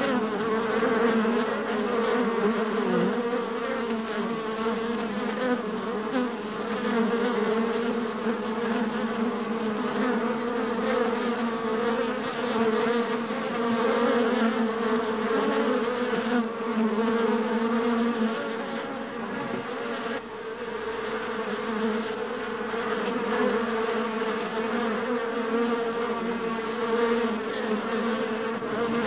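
Honeybees humming in a beehive: the dense, continuous buzz of many bees, a steady low drone with a wavering pitch.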